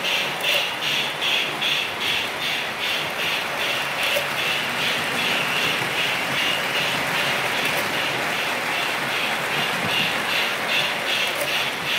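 O scale model freight train rolling past on the layout's track, the wheels clicking in a quick even rhythm, about three beats a second, over a steady running rumble.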